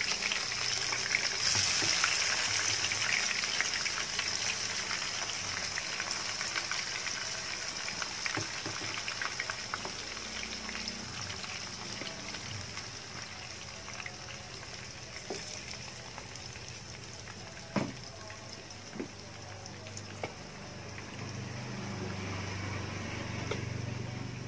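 Chicken pieces sizzling in hot oil in a wok, the sizzle loudest at first and slowly dying down. A few sharp taps on the pan come past the middle.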